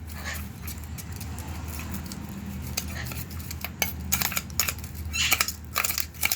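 A spoon stirring a thickening glue-based homemade slime in a bowl, scraping and clinking against the bowl. The clicks come more often in the second half.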